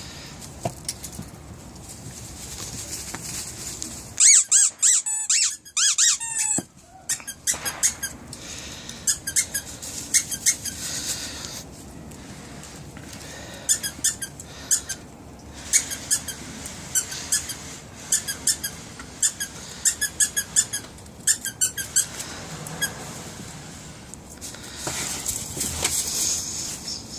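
Squeaky dog toy being chewed by a puppy: runs of short, high-pitched squeaks in quick succession, with a louder, drawn-out group of squeaks about four seconds in.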